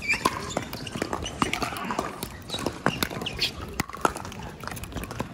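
Pickleball paddles hitting a plastic ball, a series of sharp pops at uneven spacing, with footsteps and the odd shoe squeak on the hard court.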